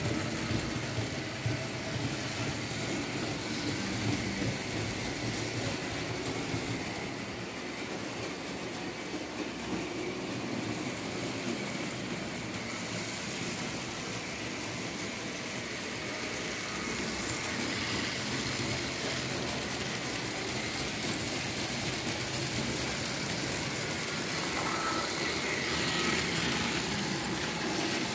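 Märklin H0 model train, a BR 74 tank-engine model pulling open freight wagons, running on the layout's track: a steady rolling rumble of the small electric motor and the wheels on the rails. It grows a little louder near the end as the train passes close.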